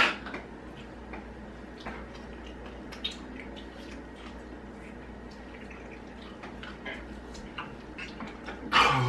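Men eating sour lemon wedges: small wet mouth clicks and smacks over a low steady hum, after a short loud burst at the very start. Near the end comes a loud, strained groan of disgust at the sourness.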